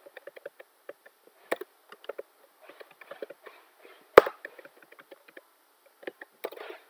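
Typing on a computer keyboard: quick, irregular key clicks, with one much louder key strike a little past the middle.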